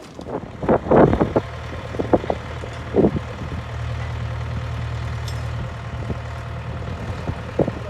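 Bulldozer's diesel engine running steadily at idle, with a few short louder sounds over it in the first few seconds.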